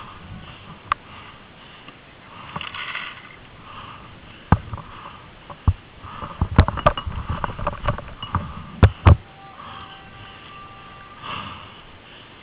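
Paintball markers firing: scattered sharp pops, then a rapid string of shots in the middle and two loud ones near the end. Under them is a player's heavy breathing close to the microphone.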